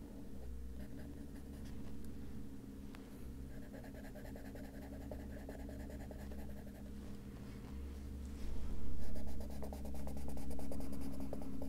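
Derwent Drawing colored pencil scratching on paper in short, repeated shading strokes. The strokes get louder and quicker about two-thirds of the way in.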